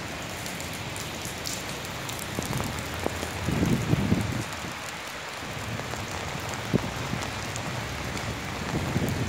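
Steady rain falling on wet pavement, with a couple of low rumbling swells, one about four seconds in and another near the end.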